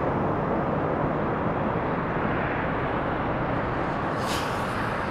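Distant jet noise from a Boeing 747-400's four turbofan engines as the airliner rolls out along the runway after landing: a steady rumbling roar that slowly fades.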